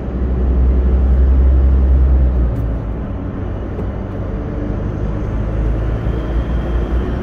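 Steady low rumble of a vehicle driving on asphalt, heard from inside the cab: engine and road noise. It eases a little about two and a half seconds in.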